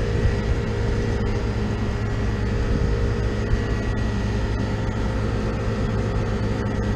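Steady hum of an air-conditioning condensing unit's compressor running with the condenser fan stopped. The system is probably very low on refrigerant.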